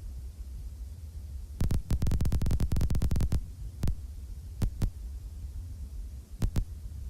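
A quick run of sharp knocks or taps lasting under two seconds, then a few single knocks and pairs, over a steady low hum.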